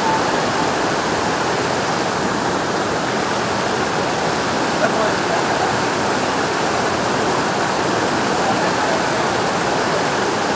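Shallow rocky river rushing over boulders in white-water rapids: a steady, loud rush of water.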